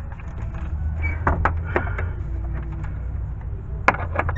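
A handful of sharp metal clicks and taps, irregularly spaced, as a socket on an extension is fitted onto a 10 mm bracket bolt. Under them is a low steady hum.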